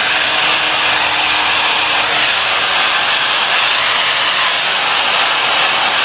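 1800 W Dyson-style hair dryer blowing steadily into the hair, a loud, even rush of air.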